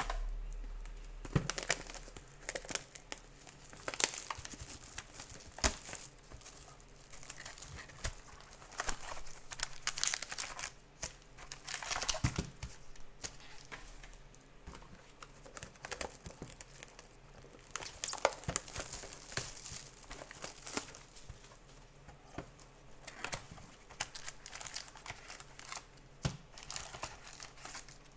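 Plastic wrapping and card-pack packaging being crinkled and torn open by hand, with irregular crackles and sharp clicks as trading-card boxes are unwrapped and the packs are taken out.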